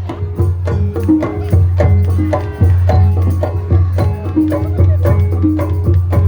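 Traditional Banyumasan gamelan music for an ebeg performance: a quick, even run of struck pitched notes and drum strokes over a strong, deep sustained tone.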